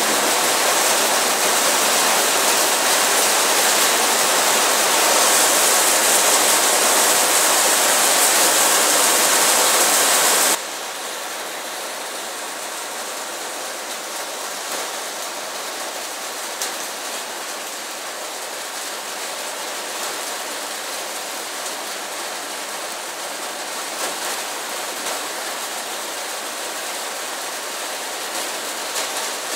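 Steady hiss of heavy rain that drops suddenly to a softer, steady hiss about ten seconds in, with a few faint ticks later on.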